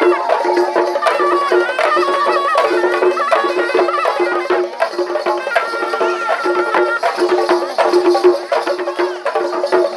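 Traditional Tamil festival drumming: a troupe of waist-slung drums beating a fast, steady rhythm, with a higher wavering melody line and a low tone pulsing on the beat.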